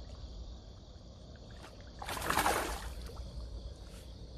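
One water splash about two seconds in, lasting under a second, as a hooked skygazer is played at the surface beside the float tube, over a steady chirring of crickets.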